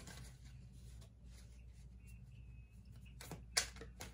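Light clicks and taps from hands handling things on a tabletop, with two sharper clicks a little past three seconds in, the second the loudest; a low steady room hum underneath.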